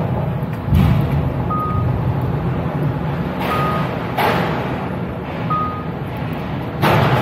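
A short high electronic beep repeating about every two seconds, from a warning or reversing beeper on a ferry's vehicle deck, over a steady low rumble heard from inside a slowly driving car. Several loud thumps break in, about a second in, twice in the middle and near the end.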